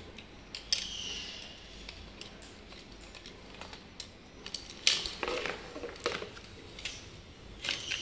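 Handling noise as the motor cable and its plastic connectors are pulled through the scooter's metal deck: scattered clicks, taps and rustling, with a brief swish about a second in and a sharp click near the middle that is the loudest.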